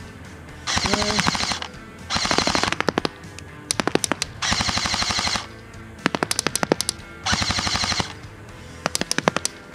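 LCT AK-12 airsoft electric rifle firing four short full-auto bursts, each a rapid buzzing rattle under a second long. Each burst is followed a little later by a quicker scatter of sharp ticks.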